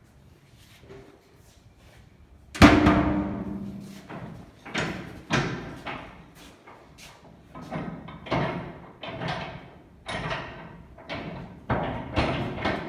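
Steel door and latch of a vertical cardboard baler being shut and locked: one loud ringing metal bang about two and a half seconds in, then a string of lighter clanks and knocks.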